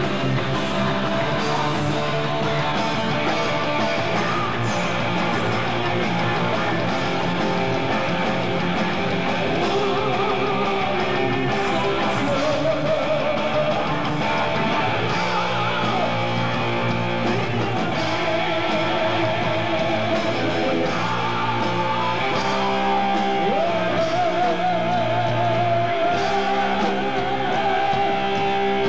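Heavy metal band playing live: electric guitars, bass and drums, with long wavering held notes near the end.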